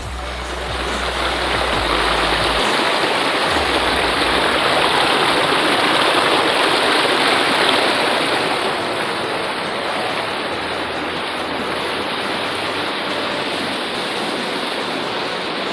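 A rocky stream rushing and splashing down a small cascade, heard close up as a steady, loud rush of water that swells over the first couple of seconds.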